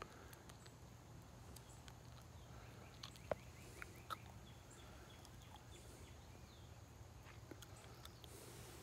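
Near silence: faint outdoor ambience with a steady low hum and a few faint clicks.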